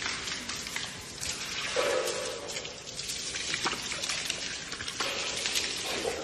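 Water spraying from a garden hose and splattering on a baby elephant's head and into its mouth as it drinks, a steady crackling spatter.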